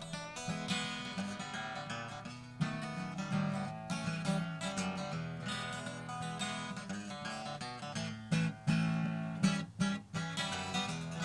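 Instrumental break of a country song: strummed acoustic guitar carrying the rhythm, with plucked guitar notes over it.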